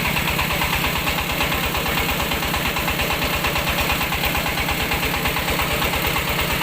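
Mobile rice-milling machine running steadily, its engine giving an even, rapid low pulse under the steady noise of the mill.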